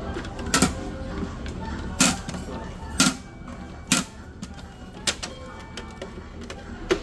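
About five short, sharp clicks and knocks of eating at a table, a second or so apart, over steady background music.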